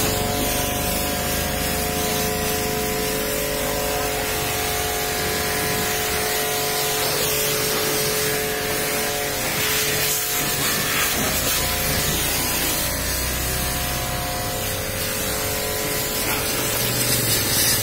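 Pressure washer's high-pressure water jet spraying against a car's painted body panels: a loud, steady hiss, with a steady hum underneath.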